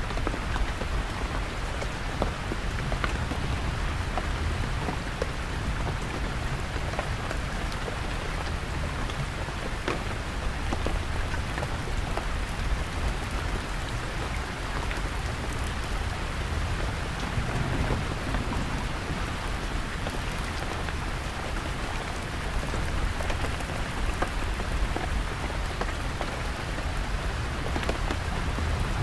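Heavy rain falling steadily on a canvas tent, with scattered individual drops tapping, and a low rumble of distant thunder underneath.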